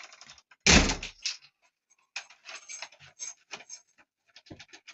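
Key turning in a newly fitted euro cylinder door lock, the lock mechanism clicking and rattling as it is worked, with one loud thump about a second in.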